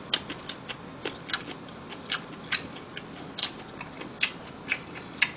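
Close-miked chewing: a run of short, wet mouth clicks and smacks, irregular, about three a second.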